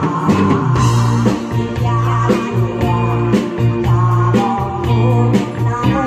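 A woman singing into a microphone over a live band, with electric guitar, keyboard and a steady beat.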